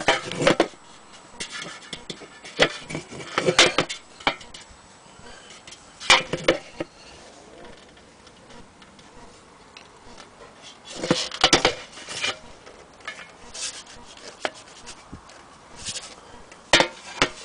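Handling noise from an antique Issenola radio horn being turned and shifted on a wooden tabletop: several short bursts of rubbing and scraping with a few sharp knocks, separated by quieter stretches.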